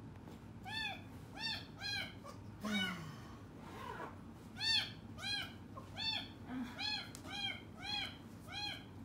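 A kitten meowing over and over in short, high cries that rise and fall in pitch, about two a second, with a short pause near the middle. The kitten is crying out of fear, having just arrived alone in a place it does not know.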